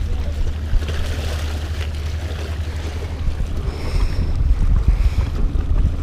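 Strong wind buffeting the microphone: a heavy, steady low rumble with a rushing hiss over it.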